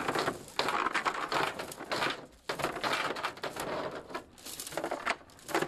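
Steel anchor chain rattling and clinking as it is pulled out of a pickup bed and handled by hand, in irregular bursts with a short pause about two and a half seconds in.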